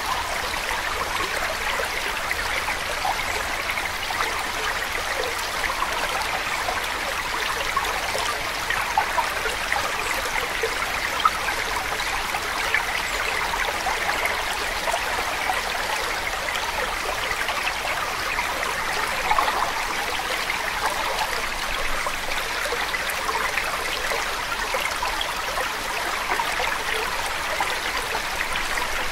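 Steady running water, an even rushing sound that holds without change throughout.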